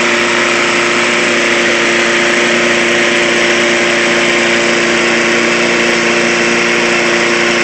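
Walk-behind lawn mower's small Briggs & Stratton engine running on propane (LPG) after a petrol-to-propane conversion. It holds one even speed with a steady hum and no revving.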